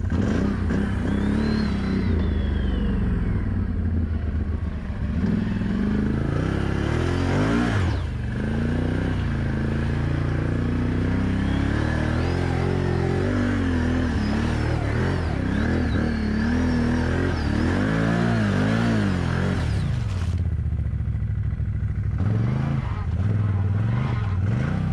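ATV engine revving hard, rising and falling again and again, while driving through deep mud. The revving drops away about 20 seconds in, then picks up again near the end, as the machine bogs down short of speed.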